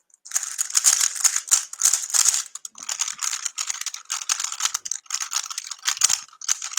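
A 3x3 speedcube being turned rapidly during a timed solve: a fast, dense run of plastic clicks and clacks from the layers snapping round, starting a moment in with a few short lulls.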